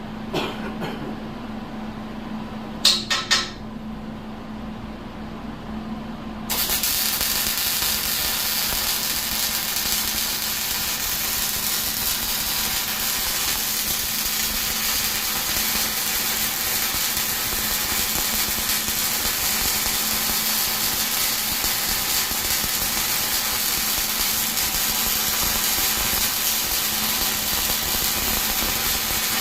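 Arc welder laying a bead: a steady crackling sizzle begins about six seconds in and holds even. Before it there are a few sharp clicks over a steady low hum.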